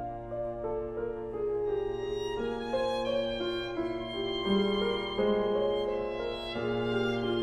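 Background music: a violin playing slow, held notes with a slight vibrato over a steady low note.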